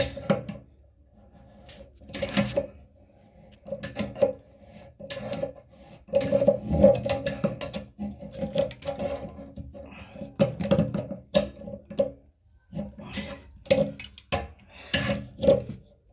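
Wrench tightening a nut on a toilet bolt: a long, irregular run of short scrapes and clicks of the tool working on the fitting.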